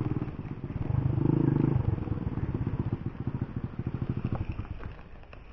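A small engine running with a fast, even putter, swelling about a second in and fading away near the end.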